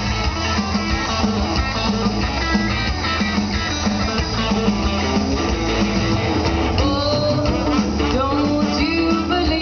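Live rockabilly band playing loudly through a PA, heard from within the audience, with guitar to the fore; a singing voice comes in about seven seconds in.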